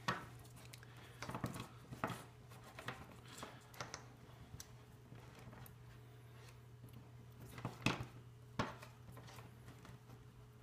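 Handling noise on a wooden tabletop: an LED strip and a small plastic control module are moved and set down, giving scattered soft knocks, clicks and rustles. There are two louder knocks about eight seconds in.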